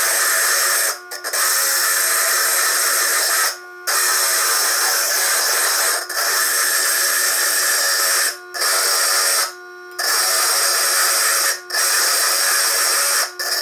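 Core drill on a Foredom bench lathe grinding a hard stone into a ball under a water drip, with the footage sped up threefold: a loud, steady, high-pitched grinding whine that drops away briefly about seven times as the stone comes off the drill.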